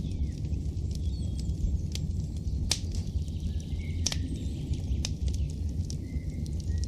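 Campfire crackling over a low steady rumble, with a few sharp pops spaced about a second apart, and birds chirping faintly.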